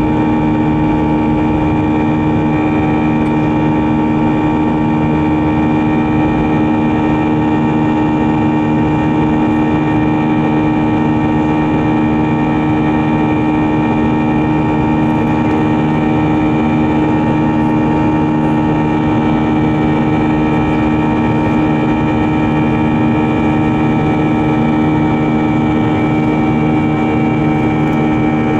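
Airbus A321's CFM turbofan engines at climb power just after takeoff, heard inside the cabin over the wing: a steady loud rush with several constant whining tones, unchanging in level.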